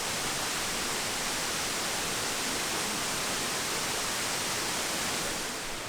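Small waterfall: a steady, close rush of falling water.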